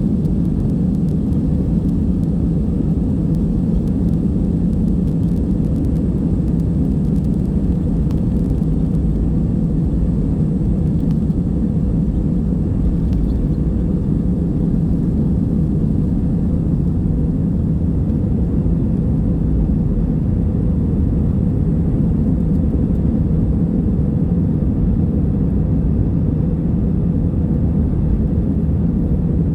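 Steady low rumble of an Airbus A320 heard from inside the passenger cabin: engine and cabin noise with no change in level.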